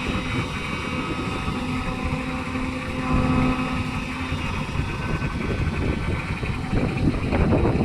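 SANY SY210C-9 excavator's diesel engine running steadily as it works. A steady higher note holds for about two seconds early on, and the engine swells briefly near the end.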